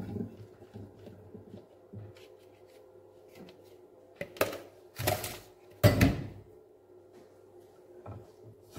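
Kitchen handling sounds: soft thuds of boiled cauliflower tipped into a ceramic baking dish at the start, then a few sharp knocks and clatters of kitchenware being handled, the loudest a little past the middle. A faint steady hum runs underneath.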